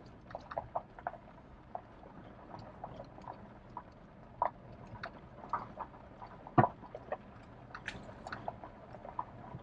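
Irregular clicks, knocks and rattles of a truck rolling over a rough dirt trail, heard from inside the cab, with one louder knock about two-thirds of the way through.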